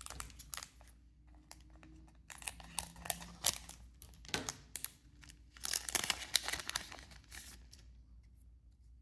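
A foil trading-card booster pack being torn open and its wrapper crinkled, in three short bursts of tearing and rustling.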